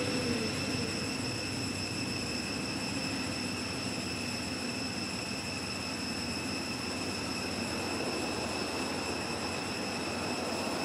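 Steady high-pitched insect drone, an unbroken whine over a constant hiss of background noise.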